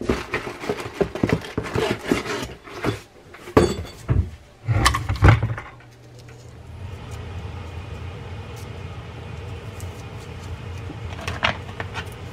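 Clicks, knocks and rustling of parts and tools being handled on a workbench, with a few heavier thumps about five seconds in. After that a steady low hum sets in, with only an odd click.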